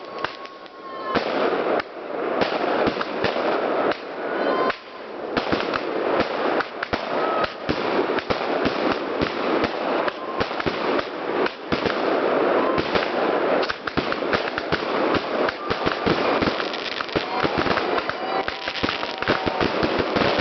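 Fireworks going off continuously: a dense barrage of rapid bangs and crackling, with a few short whistles.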